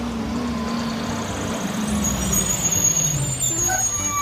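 Truck engine running, its pitch falling slowly, with a thin high whine joining about halfway through.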